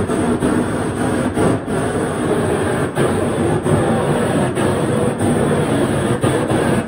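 Propane shrink-wrap heat gun running with a steady rushing noise as its flame heats the plastic wrap over a boat to shrink it tight.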